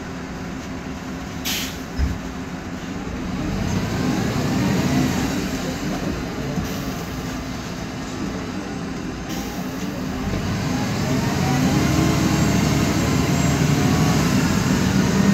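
Cabin sound of a MAN Lion's Classic city bus on the move: its CNG engine runs with a whine that glides up and down in pitch and climbs as the bus picks up speed. The uploader puts this whine down to a noisy differential. Near the start there is a short hiss and a thump.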